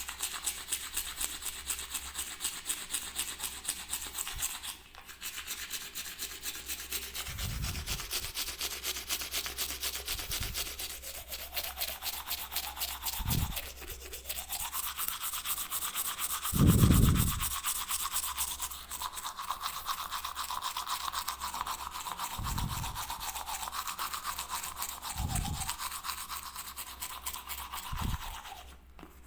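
Teeth being brushed with a toothbrush: a continuous rapid scrubbing, with several short low thuds along the way, the loudest about two-thirds of the way through.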